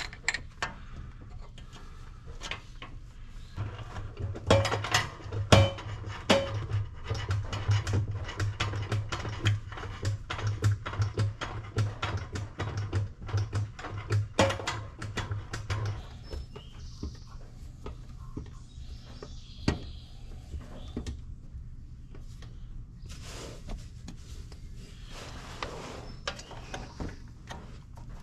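Hand-operated bucket pump clattering with irregular clicks and clacks as it is stroked, pumping gear oil through a hose into a truck transmission. A low pulsing throb runs under it and stops a little past halfway.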